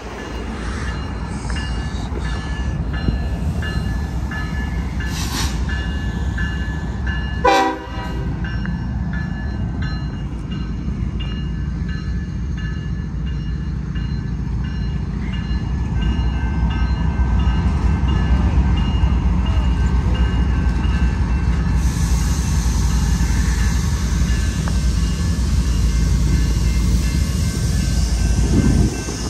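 A BNSF intermodal freight train led by GE diesel locomotives passes over a road crossing with a steady rumble of engines and wheels on rail, growing louder about halfway through. Crossing bells ring through the first several seconds, and a short, loud train horn blast sounds about seven and a half seconds in.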